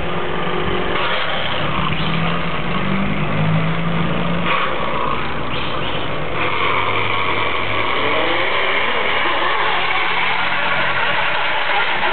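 Boat engine running steadily, its note dropping about four and a half seconds in.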